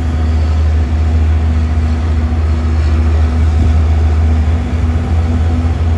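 Heavy multi-axle truck's diesel engine running steadily with a loud, deep drone.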